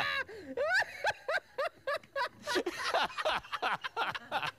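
A man laughing in rapid, short bursts, some of them high-pitched.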